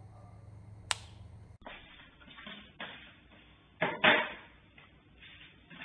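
A sharp click about a second in, then, through a security camera's muffled audio, scuffing and knocks of a plastic stool being handled on the floor, the loudest a double knock about four seconds in.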